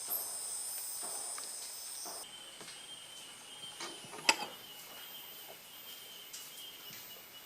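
Insects calling in steady high-pitched tones. One chorus stops about two seconds in while another, lower one carries on. A single sharp click about four seconds in is the loudest sound.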